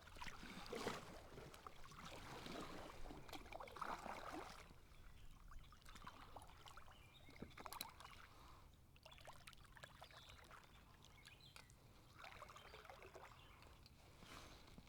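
Kayak paddle strokes swishing and dripping in the water during the first few seconds, then quieter, with small drips and clicks.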